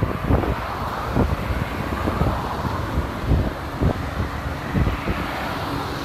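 Gusty typhoon wind buffeting the microphone in irregular low thumps, over a steady rush of vehicle running noise from road traffic and a slowly moving electric train.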